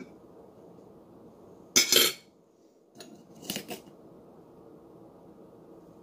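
Metal cutlery clattering against a glass jar and dishes: a loud clatter about two seconds in, then a shorter run of clinks around three and a half seconds, as a spoon is dipped into the jar.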